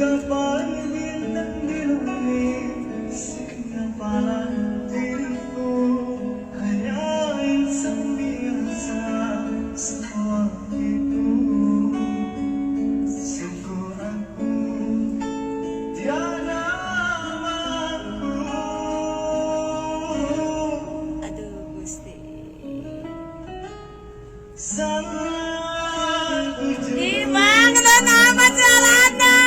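Singing to a strummed acoustic guitar, street-busker style. Near the end the voice gets louder and holds notes with a wide vibrato.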